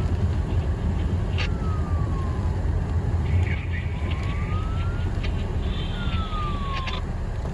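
A siren wailing, its pitch sliding down, up and down again, heard over the steady low rumble of a moving vehicle's road noise.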